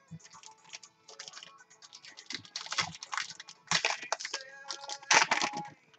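Trading-card pack's foil wrapper crinkling and tearing open by hand, in a series of short crackly bursts, the loudest about four and five seconds in.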